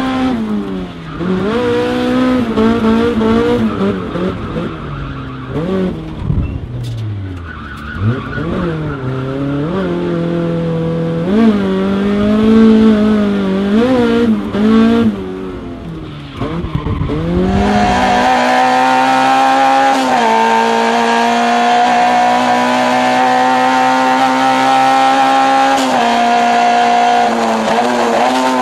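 Toyota AE86's 4A-GE twin-cam four-cylinder engine revving hard, its pitch climbing and dropping again and again as it is worked up and down through the revs. About 18 seconds in it changes abruptly to the engine held at steady high revs.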